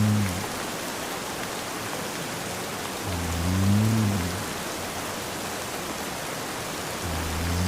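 Steady rain hiss with a man snoring over it: low, drawn-out snores about every four seconds. One fades out just after the start, a full snore comes in the middle, and another begins near the end.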